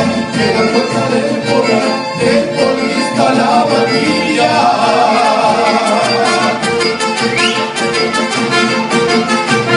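Mariachi band playing an instrumental passage, with violins carrying the melody over a steady strummed rhythm.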